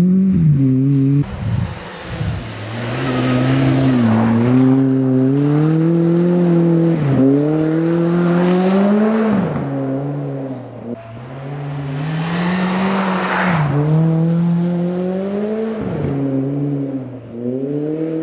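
Honda Civic Type R rally car's four-cylinder engine revving hard, its pitch climbing and dropping sharply again and again as it shifts gear and lifts off. It is loudest about four seconds in and again near thirteen seconds.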